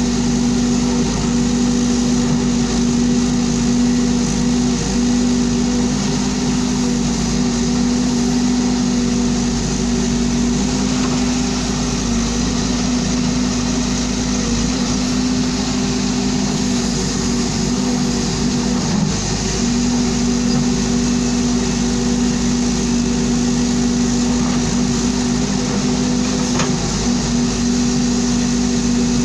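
Volvo EC210DL crawler excavator's diesel engine running steadily as the machine works, a constant loud hum; about two-thirds of the way through the hum briefly wavers and dips.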